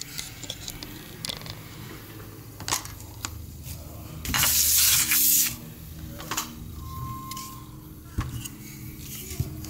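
Handling noise from a handheld camera being picked up and repositioned: scattered clicks and knocks, and about a second of loud hiss around the middle, followed a couple of seconds later by a short steady beep.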